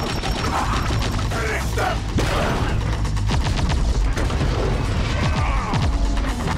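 Film battle sound effects: mechanical clanking and whirring of fighting robots, metal hits and booms over a constant low rumble, with several falling whooshes in the second half and orchestral score underneath.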